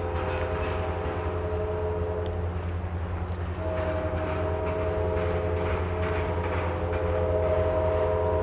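Diesel locomotive air horn sounding a chord: one blast about two seconds long, then a longer one starting about three and a half seconds in. Underneath runs the steady rumble of a freight train of autorack cars rolling past.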